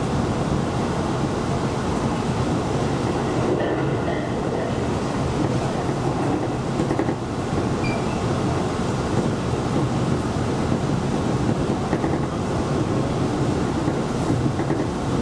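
Tobu local electric train running along the line, heard from the front of the train: steady noise of wheels on rails and the moving train.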